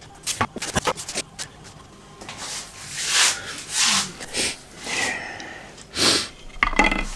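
Plywood parts being handled: a few quick knocks as the pieces touch, then several rubbing, sliding scrapes of wood on wood and on the bench top.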